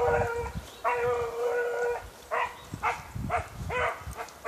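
Hound baying while running game: two long, drawn-out bawls, then a run of short chop barks at about three a second.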